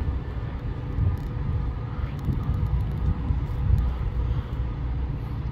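Low rumble of a train at the station, with faint steady whines above it.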